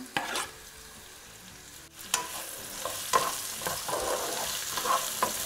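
Sliced onions with fennel and cumin seeds frying in hot oil in a non-stick pan: a faint sizzle at first, growing louder from about two seconds in as a wooden spatula stirs through them, with scattered scrapes and clicks.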